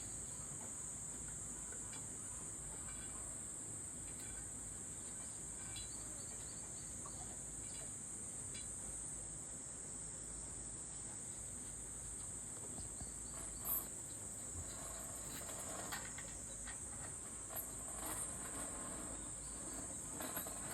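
Steady, unbroken high-pitched insect chorus, with a few faint short knocks or rustles about two-thirds of the way in and again near the end.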